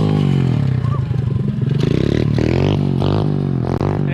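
Small pit bike engine idling steadily, with a faint voice over it in the second half.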